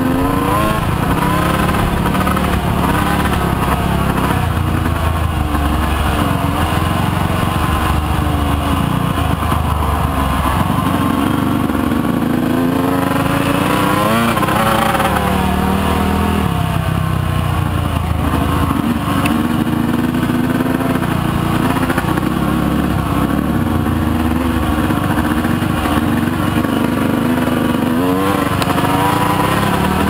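Motorcycle engine running under way, its pitch rising and falling with the throttle throughout, with a sharp climb in revs about halfway through.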